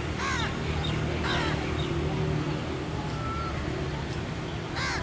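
Crows cawing: two calls about a second apart, then another near the end, over a steady low hum.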